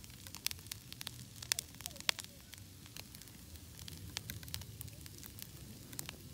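Split firewood burning in an ammo-can rocket stove, crackling with irregular sharp pops over a low steady rumble.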